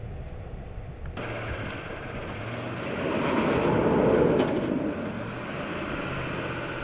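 Roadside traffic noise, with a vehicle passing by that swells and fades about halfway through, over a steady low engine hum.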